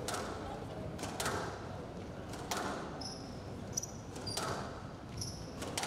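Squash ball struck back and forth in a rally: a sharp crack of ball on racket and wall every second or so, with short squeaks of court shoes on the floor from about halfway.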